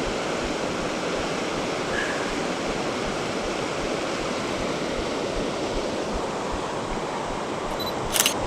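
Steady rush of flowing water, an even hiss with no rhythm. A single sharp click sounds near the end.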